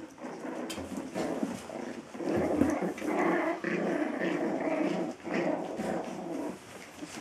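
Biewer terrier puppies growling in play as they wrestle and tug at a toy, a rough, broken run of small growls that grows louder for a few seconds in the middle.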